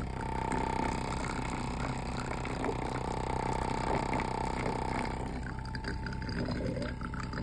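Homemade thermoacoustic engine running: a steady high tone with a fast buzz from its vibrating diaphragm, with water bubbling where its tube dips into a glass of water. The tone weakens about five seconds in.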